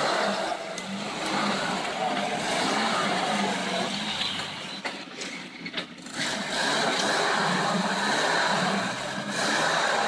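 Off-road 4x4's engine revving hard under load as it climbs a steep muddy bank. The revs drop back about five seconds in, then pick up again.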